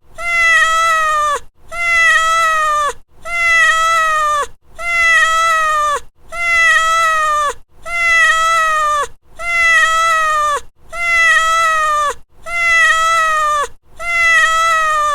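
Domestic cat meowing: the same long meow repeated about every second and a half, ten times, each one holding an even pitch and dropping at the end. The identical shape of every call shows one recording looped.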